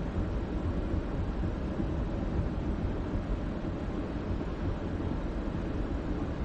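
Steady road and engine noise of a car driving at moderate speed, heard from inside the cabin.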